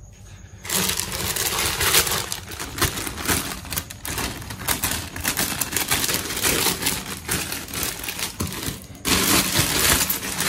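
Thin plastic bag crinkling and rustling as hands pull at it to unwrap a parcel, a dense crackle starting about a second in and growing louder near the end.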